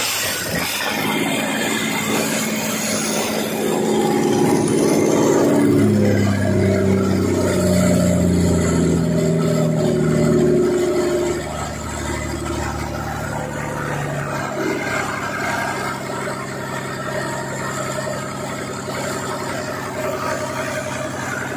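Freshly rebuilt Fiat harvester diesel engine running on its first test run. It runs louder and higher from about four seconds in, then drops back to a steady idle about eleven seconds in.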